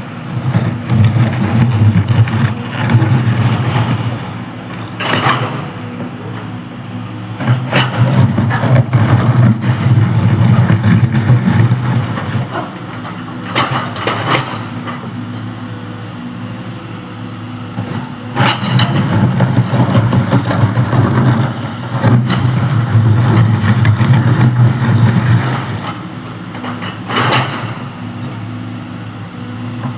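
Excavator's diesel engine running, swelling louder under load for several seconds at a time and dropping back between, with a few sharp knocks.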